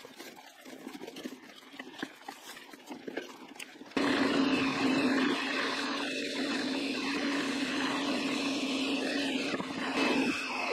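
Hardtail mountain bike rolling over a rough trail, with light crackles and rattles from the tyres and bike. About four seconds in it turns to a loud, steady rush of wind and tyre noise as the bike coasts fast down a gravel track and onto a paved road.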